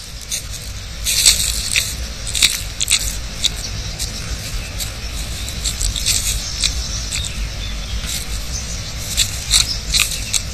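Blue whiptail lizard biting and chewing Turk's head cactus fruit: irregular sharp clicks and scrapes, a few at a time.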